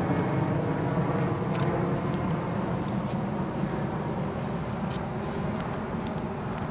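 Steady low outdoor background rumble, with scattered faint sharp crackles from a wood campfire burning with a sneaker in it.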